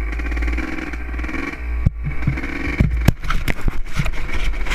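Honda CR250R two-stroke dirt-bike engine running, its pitch wavering, with a run of sharp knocks and clicks from about two seconds in.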